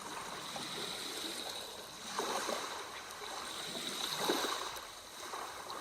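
Sea waves washing in softly, with two swells about two and four seconds in.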